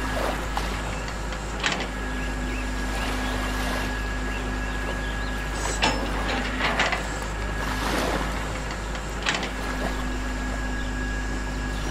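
Radio-controlled model excavator's electric motors whirring in a steady hum that stops and starts as the arm works, with a few sharp clicks and clanks of metal and chain.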